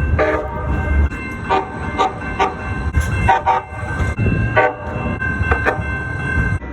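Calgary Transit CTrain light-rail train horn giving a string of short toots, about ten in all. A longer held note sounds near the end, over the low rumble of the train.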